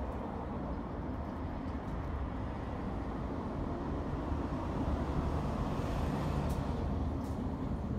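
Steady rumble of city street traffic, swelling slightly a few seconds in, with a couple of faint clicks near the end.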